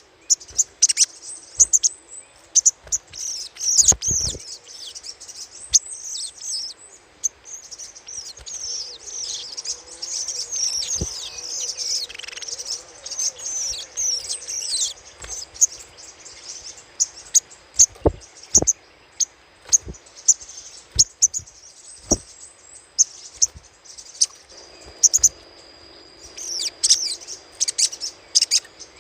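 Sogok ontong bird giving its rapid, high-pitched chattering call (crecetan): bursts of sharp chirps and trills, densest a third of the way in, played as a lure call.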